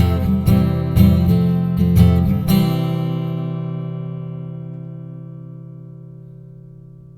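Acoustic guitar strummed about twice a second, then a final chord struck about two and a half seconds in and left to ring, fading slowly away.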